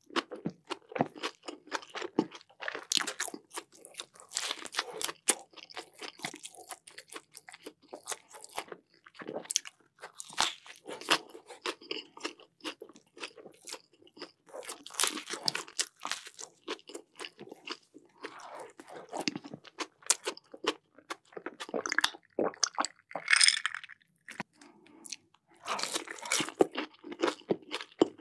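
A person biting and chewing a crunchy burger close to the microphone: repeated irregular crisp crunches and chewing in clusters.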